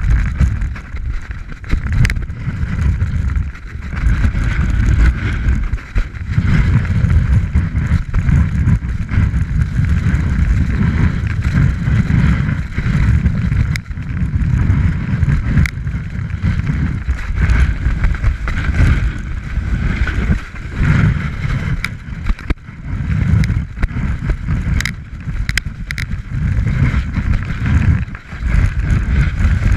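Wind buffeting the microphone of an action camera on a fast snowboard run, a heavy rumble that surges and dips with the turns. Under it the snowboard scrapes and hisses over packed snow, with occasional sharp clicks.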